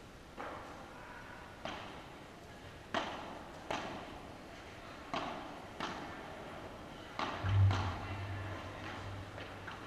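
A padel rally: the ball is struck with paddles and bounces on the court, giving a sharp pop every second or so, each with a short echo. About three-quarters of the way through comes a louder thud, followed by a low hum that lingers.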